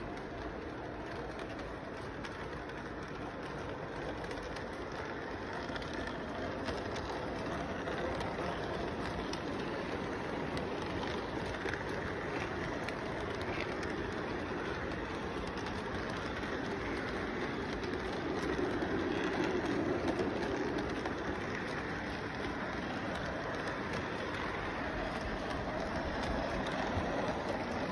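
Model train running on its track past the microphone: a steady running noise from its motor and wheels that grows louder as the cars come close, loudest a little past the middle.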